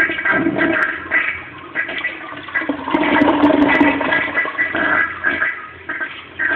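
Kohler Rockwell toilet mid-flush, water rushing down the bowl's drain in uneven surges. The uploader calls this a slow flush.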